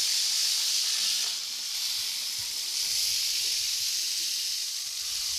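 Several rattlesnakes rattling together: a steady, high, dry buzz. This is the warning rattle of disturbed snakes.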